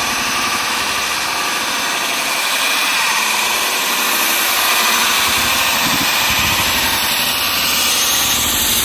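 KingTech K-55 model jet turbine in an RC MiG-29 running at high power through its takeoff run, a loud, steady jet roar that grows a little louder about midway.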